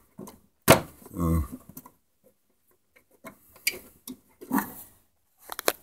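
Hands fitting the plastic lamp cover onto the back of a rear projection TV: scattered sharp clicks and taps of plastic, with a short murmur of voice about a second in.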